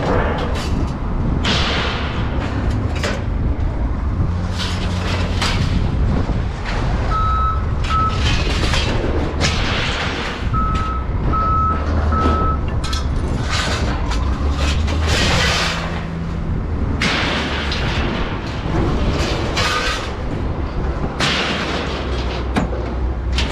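A heavy vehicle's engine running steadily, with irregular loud noisy surges every second or two, and a reversing beeper sounding five short beeps in two groups partway through.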